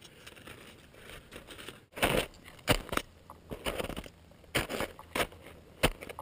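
Ski boots crunching into snow, one step after another while walking uphill. After a faint first two seconds, about seven crunching steps come at uneven intervals of half a second to a second.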